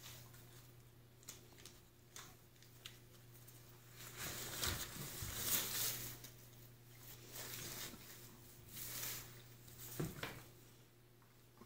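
A dog mouthing and chewing torn brown wrapping paper: soft crinkling and rustling in bursts, loudest in the middle, with a sharper knock near the end, over a low steady hum.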